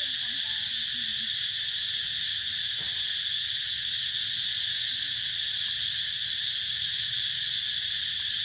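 Steady, high-pitched insect chorus, an unbroken shrill buzz that never rises or falls.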